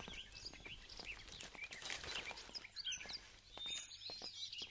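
Faint chirping of many small birds: quick, high calls that keep overlapping, with a few soft clicks among them.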